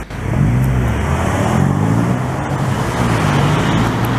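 Road traffic: a motor vehicle's engine running close by, a low droning hum that wavers slightly in pitch, starting abruptly at a cut.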